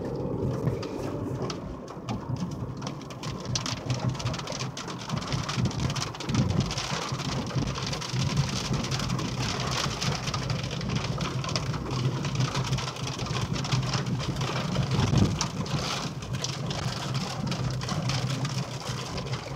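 Steady rain falling during a thunderstorm, with many close drops ticking on a nearby surface.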